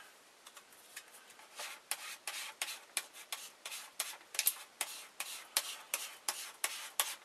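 A plastic credit card scraping and squeegeeing thick conductive wire glue into the holes of a board, in short repeated strokes about three a second, starting about a second in.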